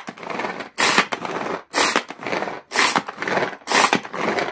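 Hand-held pull-cord food chopper chopping boiled eggs: each yank of the cord spins the blades inside the plastic bowl with a short rasping whirr, about once a second, five or so times.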